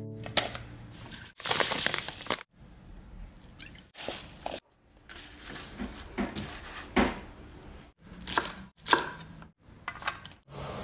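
Kitchen knife cutting food on a cutting board, heard as several short snippets of knocks and cutting noise, each breaking off abruptly.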